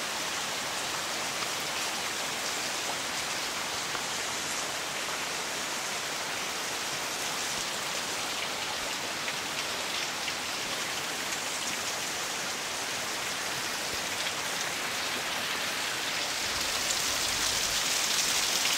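Steady hiss of falling water, getting louder over the last few seconds.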